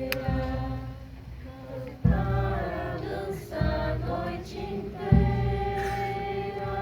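A group singing together in unison, holding long notes, with a deep thud about every one and a half seconds in the middle of the stretch, each one ringing on briefly.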